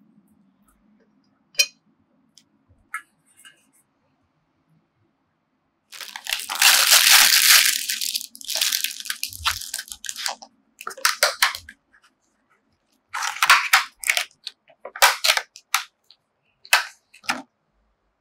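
Clear plastic food packaging being crinkled and crushed by hand, a run of loud crackly rustles and bursts after a couple of soft clicks.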